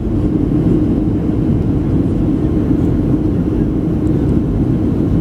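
Jet airliner cabin noise: the turbofan engines and airflow running steadily, a constant low-pitched rush with little change, heard from a window seat during the descent.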